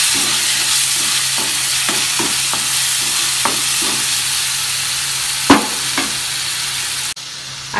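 Chopped onions and ginger-garlic paste sizzling in hot oil in a kadai, sautéed to cook off the paste's raw smell, while a spatula stirs and knocks against the pan. A sharper knock comes about five and a half seconds in, and the sizzle drops off abruptly near the end.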